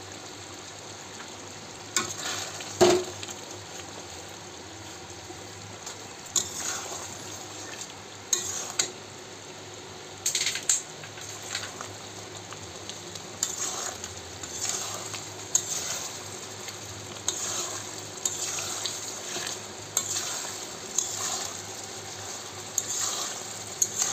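Chicken and potato curry sizzling in oil in a metal wok, stirred with a metal spatula that scrapes and knocks against the pan. The strokes come irregularly, the loudest about three seconds in, and come more often in the second half.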